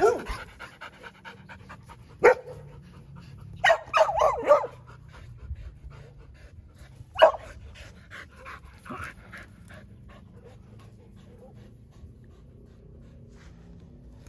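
Dogs panting rapidly, with a few short barks about two, four and seven seconds in; the panting fades toward the end.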